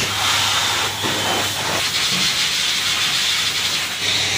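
High-pressure washer jet spraying water on a motorcycle: a steady loud hiss over a low hum from the washer's motor.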